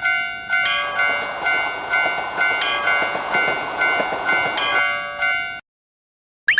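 Japanese railroad crossing warning bell ringing its alternating two-tone "kan-kan" at about three strikes a second, with the noise of a passing train beneath it. It cuts off suddenly, and a short rising chirp follows near the end.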